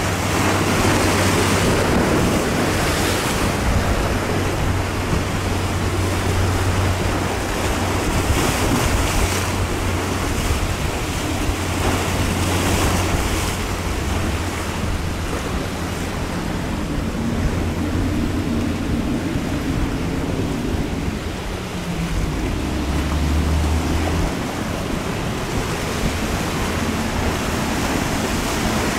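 Choppy sea and breaking surf washing continuously, with wind buffeting the microphone. Underneath runs the low steady drone of a Coast Guard 45-foot Response Boat-Medium's twin diesel engines, which fades out near the end.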